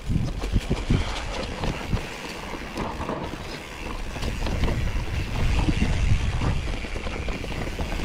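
Wind buffeting the microphone as a mountain bike rolls along a rough track, with scattered knocks from the bike over bumps; the rumble grows louder about halfway through.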